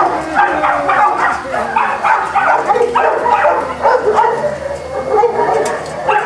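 Boston Terriers yipping and whining, with short high calls overlapping one another without a break.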